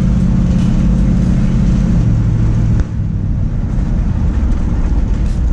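1967 Ford F100 pickup's engine and dual exhaust droning steadily under way, heard from inside the cab with road noise. The pitch changes about two seconds in, and the level drops suddenly near three seconds in before the engine carries on.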